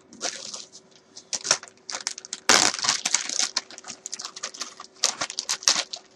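A guitar pickguard and small parts being handled on a workbench: irregular clicks, taps and rustles, busiest and loudest about two and a half seconds in.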